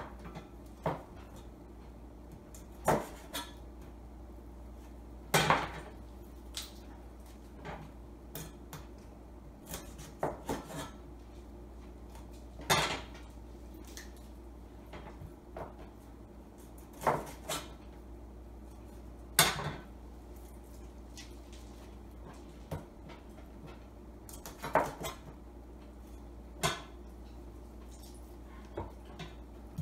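Chinese cleaver knocking and tapping on a cutting board, with clinks of kitchenware, as raw chicken wings are trimmed and their joints cut. The sharp knocks come irregularly every second or two, a few much louder than the rest, over a steady low hum.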